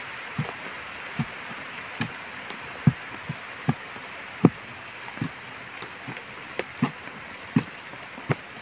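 Irregular dull thuds, roughly one or two a second, of digging into packed soil by hand with a small tool while enlarging a hole, over a steady rushing hiss.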